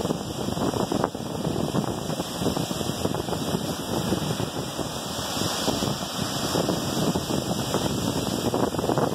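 Wind buffeting the microphone in an uneven, rumbling rush, with the steady wash of surf behind it.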